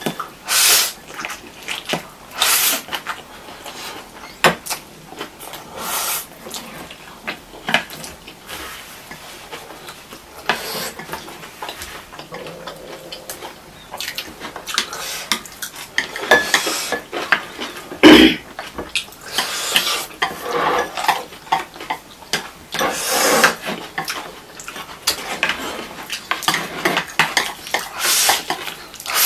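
Close-up eating sounds of chow mein: noodles slurped and chewed, with chopsticks clicking and scraping against china plates in irregular bursts. One louder clunk of a dish about eighteen seconds in.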